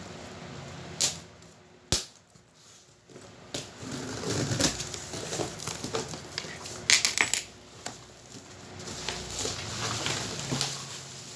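Packaging being opened and handled while a 10-inch speaker driver is unboxed: irregular rustling, scraping and clicks, with a sharp knock about two seconds in and a loud rustle about seven seconds in.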